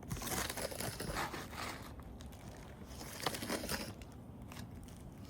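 Rough scraping and crunching on gritty asphalt roof shingles. It comes in two spells, the second with a sharp click.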